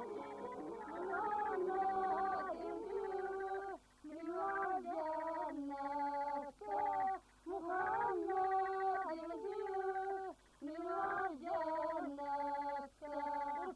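A woman singing a Turkish folk song (türkü) unaccompanied, in short phrases broken by brief pauses.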